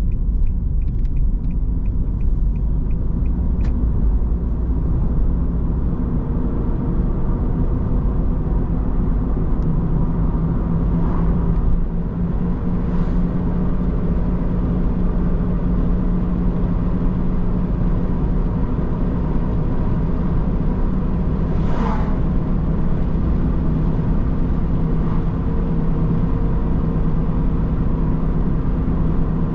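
Car being driven on a road: steady low engine and road rumble, with the engine note settling higher about ten seconds in. A fast, regular ticking runs through the first four seconds and then stops.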